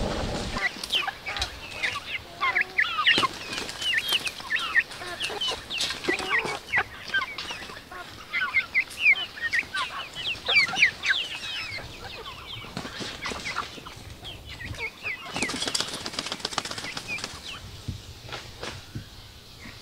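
Birds calling in a dense chatter of short, quick chirps that thins out after about twelve seconds, with scattered sharp clicks and a brief noisy burst about fifteen seconds in.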